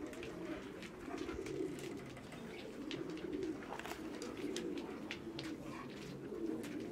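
Pigeons cooing: a low, wavering call that goes on without a break, with a few faint clicks here and there.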